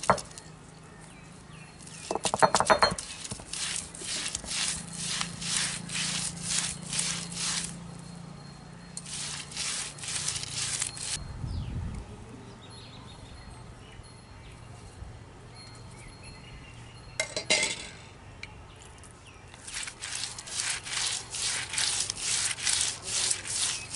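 Cylindrical stone roller rubbing back and forth on a stone ammi grinding slab, grinding garlic and spices and then grated coconut into masala paste. The rasping strokes come at about two a second, with a pause of a few seconds in the middle.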